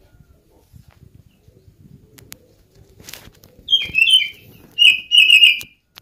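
Oriental magpie-robin (kacer) calling: two loud bursts of quick chirping notes in the second half, after a few quiet seconds with faint clicks.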